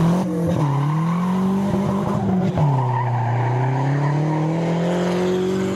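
Nissan 240SX with a turbocharged KA24DE four-cylinder engine accelerating away hard with tyres squealing. The engine note climbs, drops sharply about two and a half seconds in as it shifts up, then climbs again more slowly.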